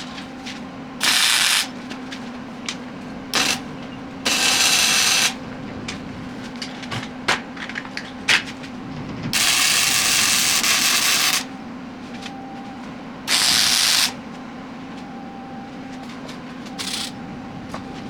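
Arc welding in four short bursts of steady hissing crackle, each about one to two seconds long, with a steady machine hum and light clicks in between.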